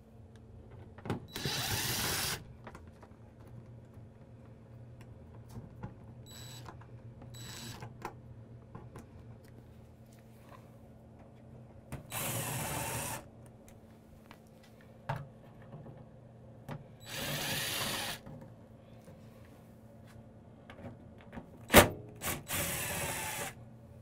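Cordless DeWalt drill/driver spinning panel screws out of a tankless water heater's sheet-metal cover in four runs of about a second each, with two brief trigger blips between them. A sharp click, the loudest sound, comes just before the last run.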